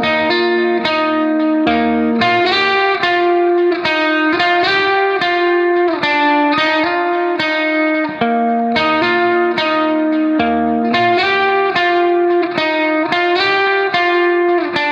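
Background music: a guitar plucking a steady, repeating pattern of notes.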